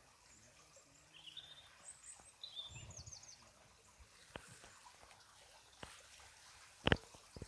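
Small birds chirping a few short times over faint outdoor background noise, with several sharp clicks, the loudest near the end.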